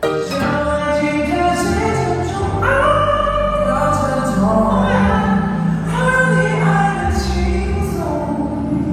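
Music: a song with several voices singing long held notes over a steady deep bass.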